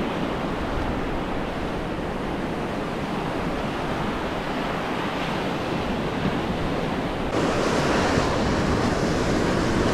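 Ocean surf breaking and washing on the beach, a steady rush of waves with wind on the microphone, getting louder and brighter about seven seconds in.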